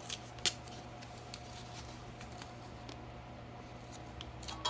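Steady low hum of the workshop, with a sharp click about half a second in and a few small clicks and taps near the end as exhaust parts and masking tape are handled.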